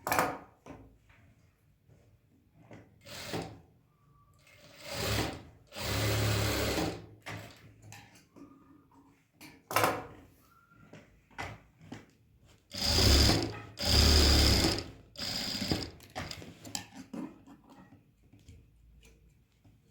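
Electric sewing machine running in short bursts, about a second each, a few seconds in and again in a cluster near the middle, with small clicks and handling noises in between.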